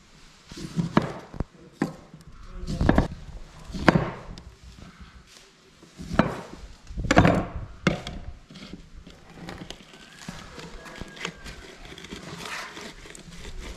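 Firewood being chopped and broken up for kindling: a run of irregular heavy knocks through the first eight seconds or so, then quieter knocking and rustling.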